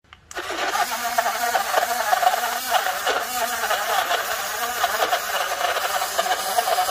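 Portable rechargeable USB bottle blender's small motor running, its six blades spinning through milky liquid with a steady buzz. It starts about a quarter of a second in.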